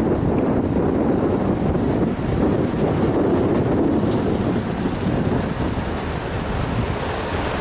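Steady rumble of wind buffeting and road vibration picked up by an action camera mounted on a moving bicycle, with a couple of faint ticks midway.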